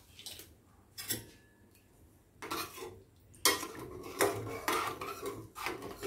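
Metal ladle clinking and scraping against a stainless steel pot as a pot of rasam is stirred: a few single clinks at first, then steady stirring from about two and a half seconds in.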